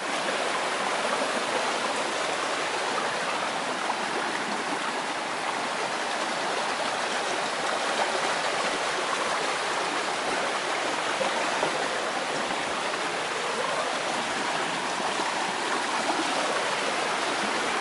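A small rocky creek running over stones: a steady, even rush of flowing water.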